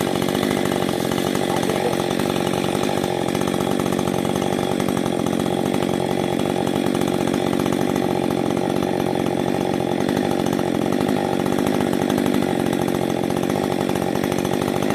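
Rebuilt Husqvarna 562 XP two-stroke chainsaw running at an even, unchanging speed, with new cylinder and piston and reworked transfer ports.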